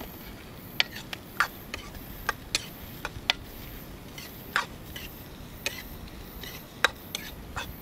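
About a dozen sharp, irregular clicks and taps over a quiet background: a spoon knocking against a cooking pan while stirring tomato and red chilli.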